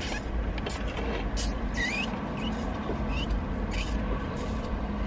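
Milkshake being sucked through a plastic straw: several short slurps over a steady low vehicle rumble.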